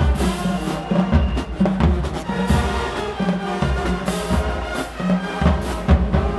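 HBCU-style marching band playing: full brass sounding loud, sustained chords over a driving bass drum and snare beat, with cymbal crashes every second or so.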